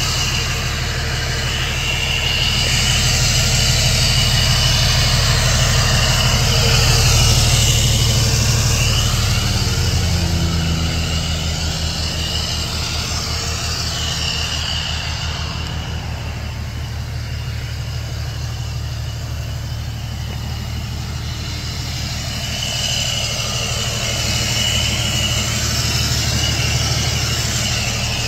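The 2005 Hino 268's 7.6-litre inline-six diesel idling steadily through a straight-piped exhaust. It swells a couple of seconds in, then settles back to an even idle.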